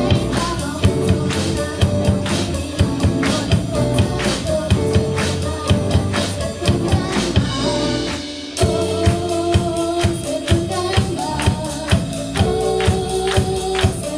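Live rock band playing: a drum kit keeps a steady beat under electric guitars and bass. About eight seconds in the band briefly drops out, then crashes back in together.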